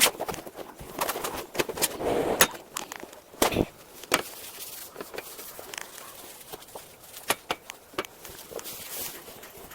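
Irregular clicks and knocks from tools and treadmill parts being handled during a running-belt replacement, with a short scrape about two seconds in and the loudest knock about three and a half seconds in.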